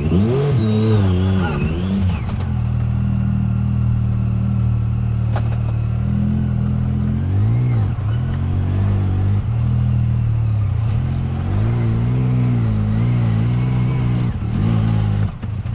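Side-by-side UTV engine running just after starting, idling steadily with its pitch rising and falling a few times.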